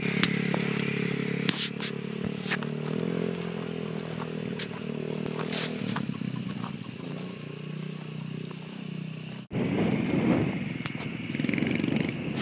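Honda CRF70 dirt bike's small single-cylinder four-stroke engine running as the bike rides off, its pitch stepping up and down, with a few sharp clicks. After a sudden break about nine and a half seconds in, the sound turns rougher and noisier.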